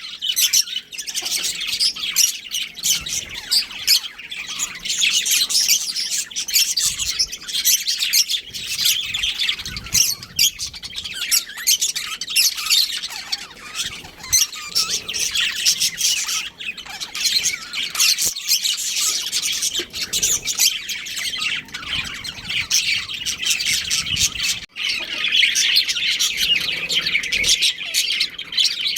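Budgerigars chirping and chattering without pause, a dense run of quick high-pitched calls.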